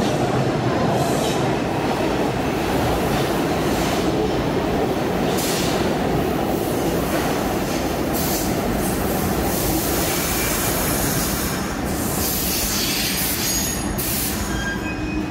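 R62A subway train running on the rails with a steady loud rumble and rattle, with brief high-pitched wheel squeals near the end.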